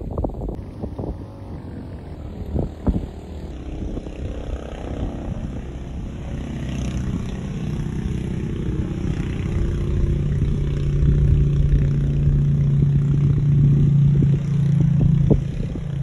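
A motor engine running with a steady low hum that grows louder through the second half and drops away shortly before the end, over low wind rumble on the microphone.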